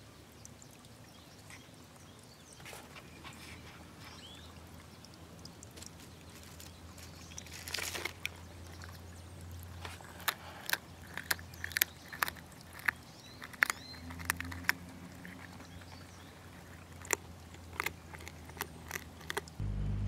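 Irregular sharp clicks and crackles of seed shells and dry leaves being disturbed as a northern short-tailed shrew forages in a pile of birdseed, coming thick from about halfway in, over a low steady hum.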